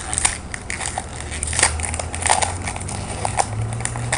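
Plastic Pokémon card packaging crinkling and crackling as it is handled, a dense run of small irregular crackles.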